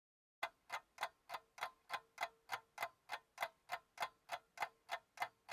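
Clock ticking sound effect: sharp, evenly spaced ticks about three a second against dead silence, starting about half a second in.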